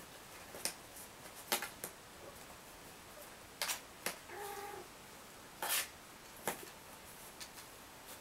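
Kittens scrabbling about in a cardboard box: scattered short scratches and rustles, with one short kitten mew about halfway through.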